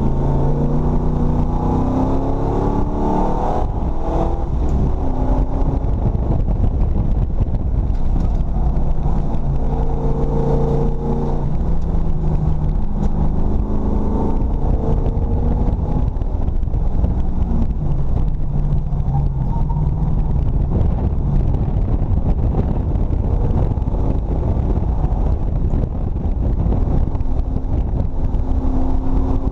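Ford 351 Windsor small-block V8 in a BMW E34 race car, heard from inside the cockpit under hard racing use: its pitch climbs through the revs and drops back several times on shifts and lifts, over a heavy rumble of road and wind noise.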